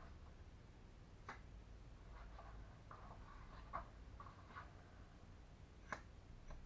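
Faint, irregular snips of barber's scissors cutting long hair, with a sharper click of the blades about a second in and another near the end.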